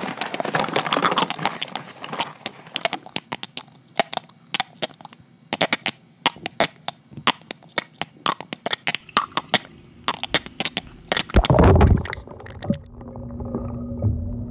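Foam of bubbles in mouthwash popping close up: a dense crackle that thins out into scattered sharp pops. Near the end a loud low thump and rush, then a steady low hum.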